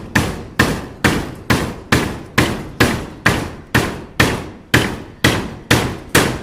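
Hammer blows on a construction site, struck in a steady rhythm of about two a second, each a sharp hit that dies away quickly.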